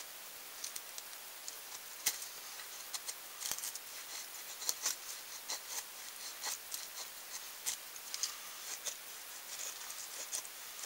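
Knife carving a feather stick: a string of short, irregular scraping strokes as the blade shaves long curls off a stick of dry wood.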